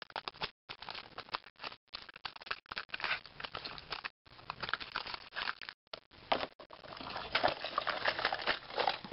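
Hands handling fishing lures and clear plastic tackle trays: irregular clicks, light rattles and plastic rustling, coming thicker and louder near the end.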